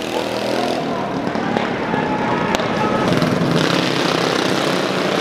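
Small single-cylinder mini bike engines running on a dirt track, first at race speed, then, after about three and a half seconds, a field of mini bikes running at the start line.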